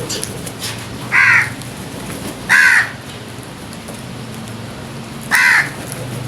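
A crow cawing three times: three short, harsh caws, the second about a second and a half after the first, and the third about three seconds later.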